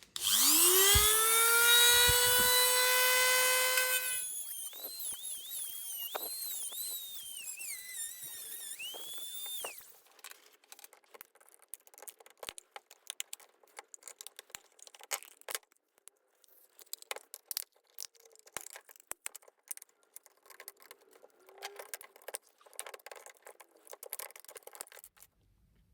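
Electric grinder switched on, spinning up with a rising whine that settles to a steady high pitch, then cutting into the sealed plastic case of a battery pack, its pitch wavering under load. It stops about ten seconds in and is followed by scattered light clicks and knocks of handling.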